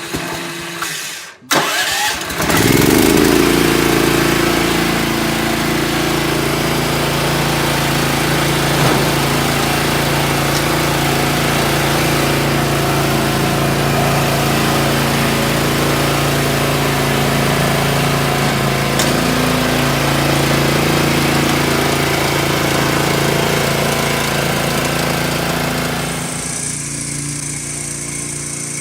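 Engine of a Victory GSF-2500 self-propelled stump grinder being started. It catches about two seconds in, then runs steadily, and eases down a little near the end.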